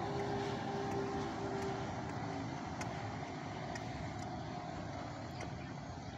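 Outboard motors of a long wooden river speedboat running at speed: a steady drone with a humming tone that fades out about two seconds in, growing slowly fainter as the boat draws away.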